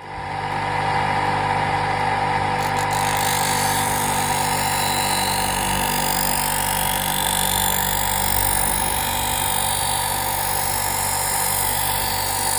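Electric sharpening machine running steadily, its motor humming under a continuous grinding hiss as a sickle blade is ground on it. It starts up at the beginning and stops near the end.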